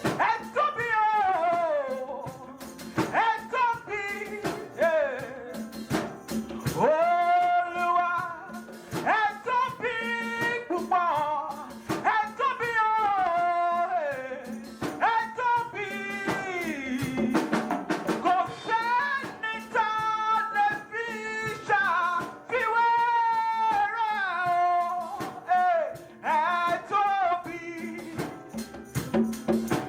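Worship singing with instrumental accompaniment, the voice gliding through sung phrases over a steady held low note.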